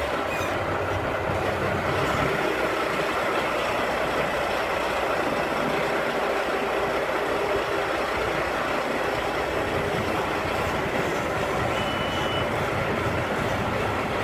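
Semi-truck's diesel engine running with a steady drone as the truck moves slowly. A single short, high beep sounds about twelve seconds in.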